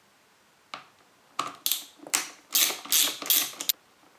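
A screwdriver undoing small terminal screws in a hedge trimmer's cord connector: one click, then a run of short clicking ratchet-like bursts that stop shortly before the end.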